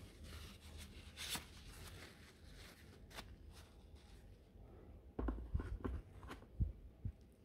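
Faint rustling of a crumpled paper towel wiping excess wood glue off a small plywood frame. About five seconds in come several soft knocks as the wood is set down and handled in a plastic tray.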